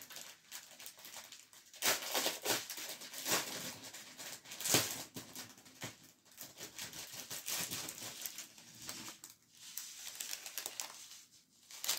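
Thin plastic packaging crinkling and rustling in irregular handfuls as small bags of diamond-painting rhinestones are handled.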